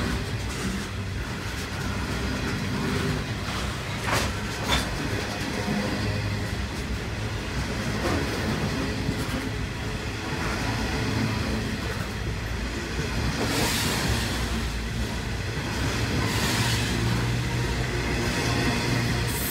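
Coal train's hopper wagons rolling past close by: a steady rumble of steel wheels on the rails, with a couple of sharp clicks about four seconds in.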